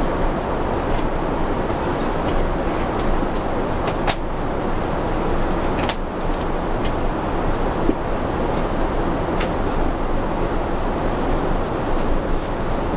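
Steady rushing cabin noise of an airliner, with a few faint clicks.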